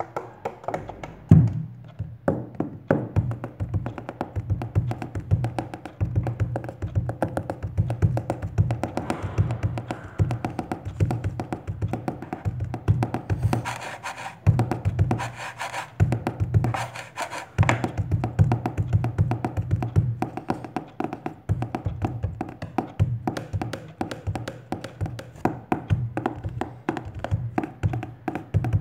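Fast hand and finger drumming on everyday objects: taps and thumps on a plastic water bottle, the wooden tabletop and books, played as a continuous rhythmic groove with one hard hit about a second in.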